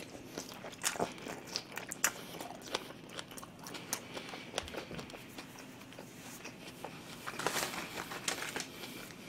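Close-miked chewing of a mouthful of food, with many small wet clicks and smacks. About seven and a half seconds in, a short louder rustle of plastic.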